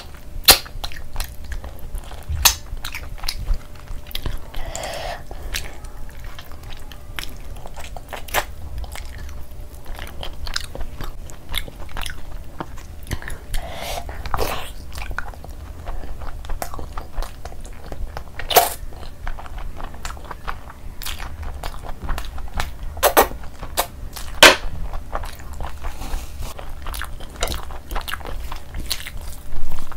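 Close-miked mouth sounds of a person eating curried meat and rice by hand: wet chewing and lip smacking with many sharp clicks, a few of them much louder than the rest.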